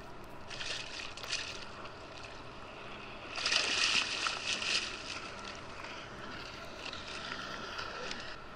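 A fluke being scooped into a landing net beside the kayak, water splashing loudly for about a second and a half starting a little over three seconds in, with smaller splashing near the start and water lapping at the hull throughout.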